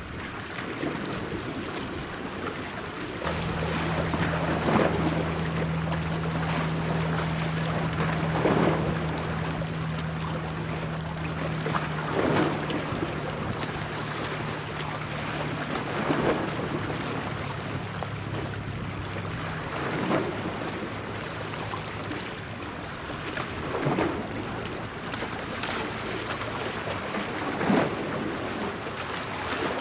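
Low steady machinery hum from the helicopter destroyer JS Kaga, starting a few seconds in and stopping about two-thirds of the way through. Beneath it are wind on the microphone and small waves washing ashore about every four seconds.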